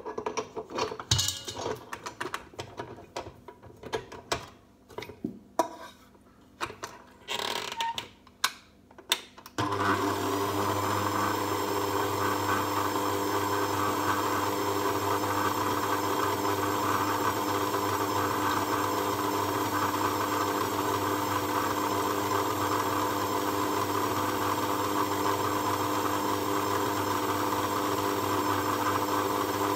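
Stand mixer: clicks and knocks as an attachment is fitted and the head is locked down. About ten seconds in, the motor starts suddenly and runs at a steady hum, beating oil, sugar, vanilla and eggs together.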